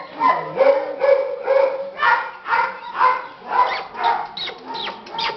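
Puppies yelping and whimpering over and over, about two short cries a second, with sharp falling whines near the end.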